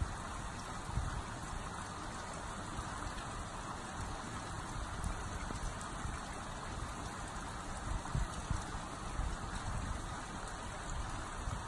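Water trickling and dripping down a moss-covered rock wall: a steady pattering hiss of many small drips and rivulets, with irregular low rumbles underneath.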